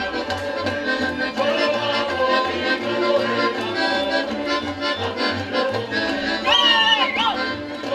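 Slovak folk band music led by an accordion over a steady bass pulse. About six and a half seconds in, a high sliding note rises, holds briefly and dips.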